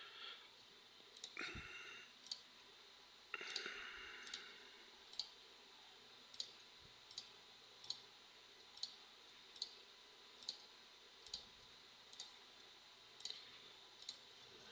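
Computer mouse button clicking in a steady series of single clicks, a little more than one a second, as faces are picked one at a time in CAD software.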